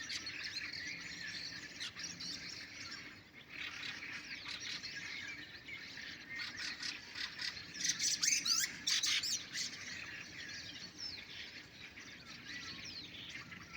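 Nightingales singing in a dense chorus of whistles, trills and rapid clicking phrases, loudest about eight to nine and a half seconds in.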